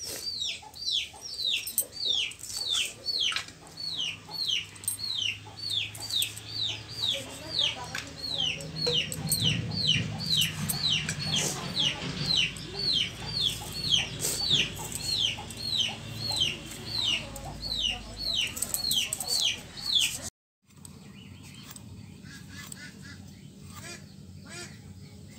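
A chick peeping over and over, about two high, falling peeps a second, until the sound cuts off abruptly about 20 seconds in. A faint low hum remains after it.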